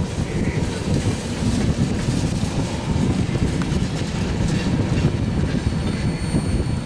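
Freight train cars rolling past on the rails with a steady rumble of wheels. A faint, thin high tone joins about five seconds in.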